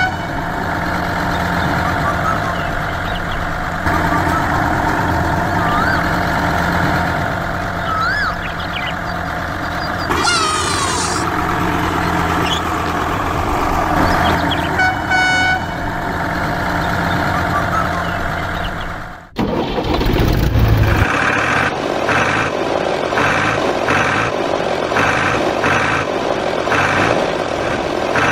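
Truck engine running steadily, with horn toots. After a brief dip about nineteen seconds in, an engine sound with an even pulsing rhythm takes over.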